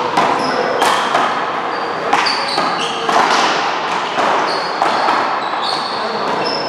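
A rubber ball smacking off paddles, hands and the wall in a one-wall paddleball and handball rally, sharp echoing hits about once a second, with short high sneaker squeaks on the court floor between them.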